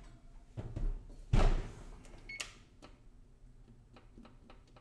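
Kitchen oven door being shut with a loud thump about a second and a half in, after a lighter knock, followed by a click and a short high beep.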